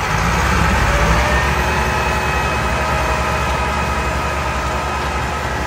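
Massey Ferguson 385 tractors' diesel engines working hard under load while pushing a heavy loaded sugarcane trolley backwards: a steady deep engine rumble with a steady whine over it, growing louder in the first second.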